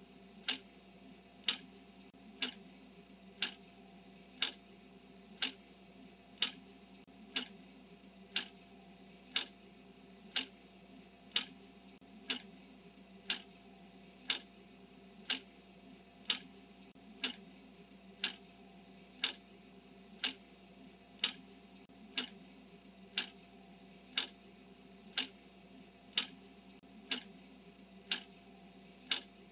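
Countdown timer ticking like a clock, one sharp tick each second as the seconds count down, over a faint steady hum.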